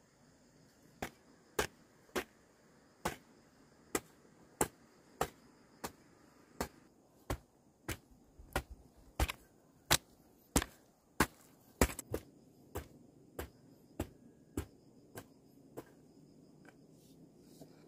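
Hand hoe chopping into dry, loose soil: a steady run of sharp strikes, a little under two a second, starting about a second in.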